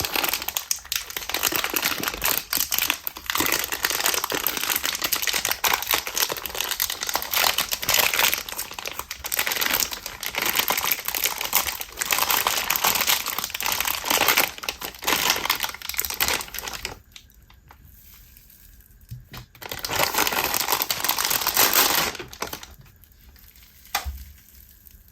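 Butter-type slime with bingsu bead add-ins being squished and stretched by hand, making a dense, very sizzly crackling. It drops to a quieter lull about two-thirds of the way through and again near the end.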